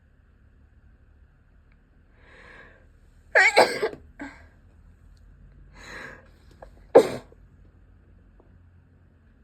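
A person sneezing twice in a sneezing fit, each sneeze coming after an audible in-breath. The first, about three and a half seconds in, is loud and voiced, with a short catch after it. The second, about seven seconds in, is short and sharp.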